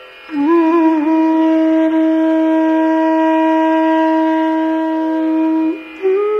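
Background music in an Indian classical style: a wind instrument holds one long steady note for about five seconds after a short bend at its start, then begins a new ornamented phrase near the end.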